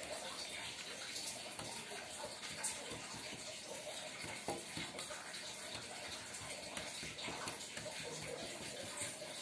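A hand mixing hilsa fish pieces with mustard-poppy paste and oil in a steel bowl: soft wet squelching and sloshing, with a few faint light clicks.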